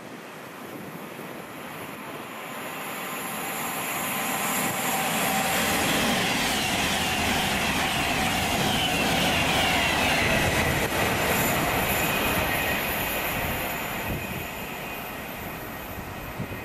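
A train passing on the main line. The noise builds over the first six seconds, holds for several, then fades, with a high whine that falls in pitch as it goes by.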